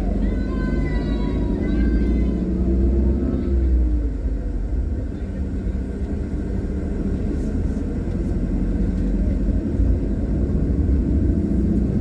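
Car engine and road rumble heard from inside a slowly driving car, the engine note sliding down about four seconds in. A few short high voices sound in the first two seconds.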